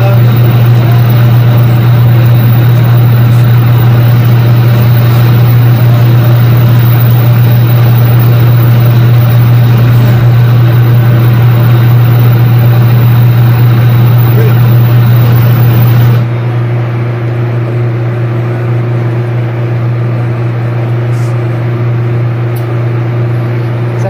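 Oxy-fuel torch flame hissing steadily as it heats a rusted, seized hydraulic limit switch body to free its stuck bolts, over a loud steady low drone of ship machinery. About sixteen seconds in, the torch hiss stops and the sound drops, leaving the drone.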